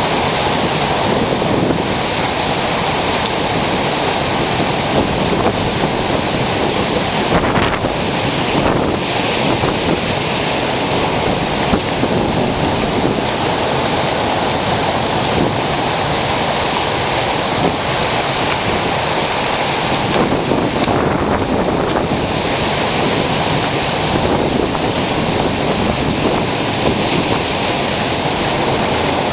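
Ocean surf on the shore: waves breaking and washing up the beach in a steady, unbroken rush.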